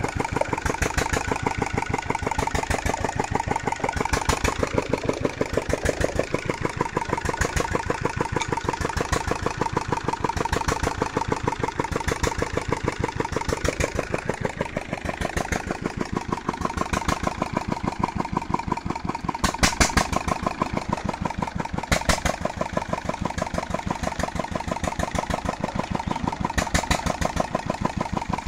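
A 16 HP Petter diesel engine running steadily at idle with an even, rapid train of firing beats.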